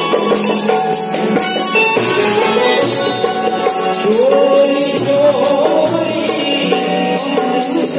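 Live ghazal music: harmonium and tabla playing, with a man's voice singing the melody, clearest from about halfway through.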